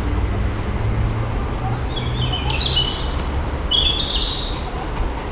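South West Trains Class 159 diesel multiple unit approaching slowly, its diesel engines giving a low steady hum. From about two seconds in, a few brief high-pitched sounds come and go for a couple of seconds.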